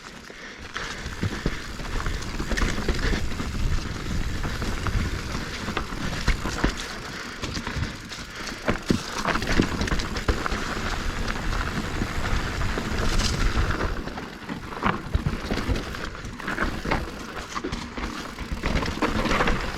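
Mountain bike rolling fast over a dirt and rock trail: steady tyre noise and low rumble, with frequent clatters and knocks from the bike over rough ground.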